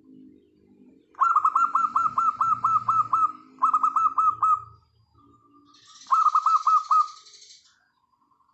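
Zebra doves (perkutut) calling: fast runs of short, clipped cooing notes repeated several times a second, in two bursts, over softer low cooing. A brief hiss accompanies the second run.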